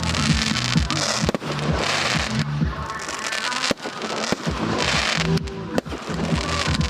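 Fireworks display: several sharp bangs and crackling shells over loud music with a steady bass line.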